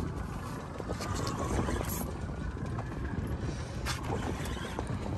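Steady rumbling noise on board a small fishing boat at sea, with a few faint clicks or knocks.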